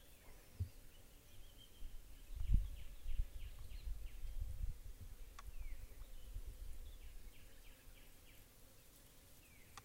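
Outdoor waterside ambience: faint, short, high chirping calls repeating through, over a low rumble on the microphone that swells about two and a half seconds in. No shot is fired.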